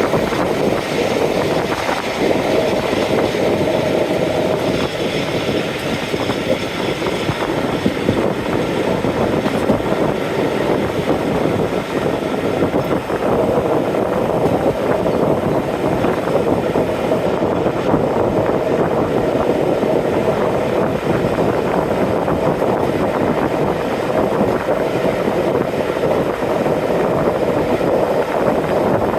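Steady running noise of a diesel-hauled train in motion, heard from on board: a continuous rumble from the train hauled by Class 45 locomotive 45108, without pauses or single knocks.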